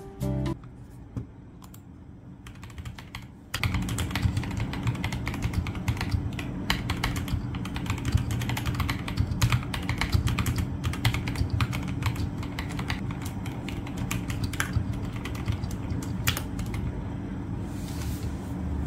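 Typing on a computer keyboard: fast, irregular key clicks over a steady low hum. The typing starts about three and a half seconds in, after a quieter stretch.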